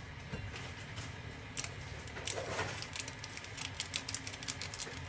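Dried goji berries being shaken from a packet into a small pot of pear soup, making faint irregular ticks and patters, several a second, from about a second and a half in.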